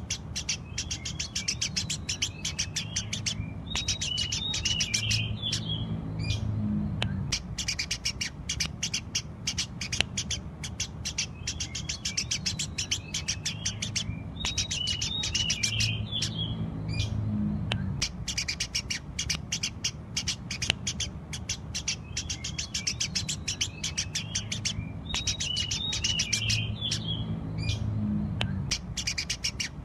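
Eurasian tree sparrows chirping rapidly and without pause, several chirps a second, with bursts of twittering among them. The same stretch of chirping repeats about every eleven seconds over a steady low hum.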